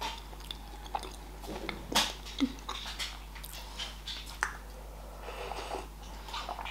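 Close-up mouth sounds of a person chewing a soft brownie, with small wet smacks and clicks. In the second half comes a sip from a mug of tea.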